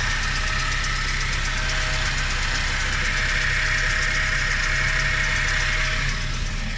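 Nissan Juke running, with a steady high-pitched whine over the engine sound that swells in the middle and eases off near the end. It is a noise the owner cannot trace.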